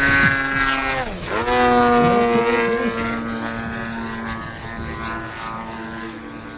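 Large radio-controlled aerobatic plane's petrol engine with MTW tuned pipes, running in flight. Its pitch dips sharply about a second in, then holds steady and slowly fades as the plane flies off into the distance.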